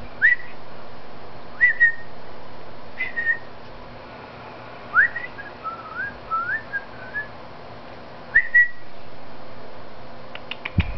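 Whistling: short rising whistled notes, one every second or two, with a quick run of wavering notes about halfway through.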